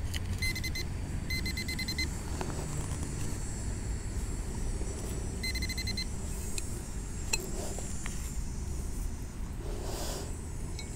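Metal detecting pinpointer beeping in quick runs of short, same-pitched beeps, three runs in the first six seconds, as it closes in on a buried metal target. Under it there is a steady low rumble of handling and digging noise with a few faint clicks.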